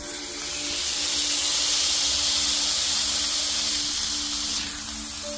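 Burger patties sizzling hard on a hot Stargazer cast iron skillet. The sizzle jumps up suddenly at the start, as food meets the hot pan, and drops back to a lower sizzle about four and a half seconds in.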